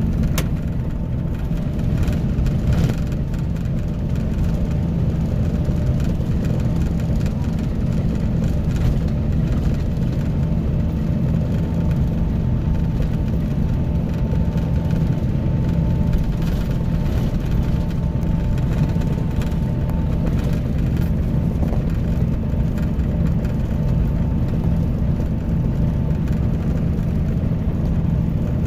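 Scania K310IB coach's diesel engine running steadily with a constant low drone, and a faint high whine about halfway through.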